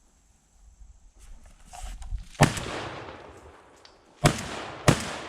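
Three gunshots fired at a running buck: one about two and a half seconds in, the first shot and a miss, then two more close together about two seconds later, each with a long echoing tail. A brief rustle comes just before the first shot.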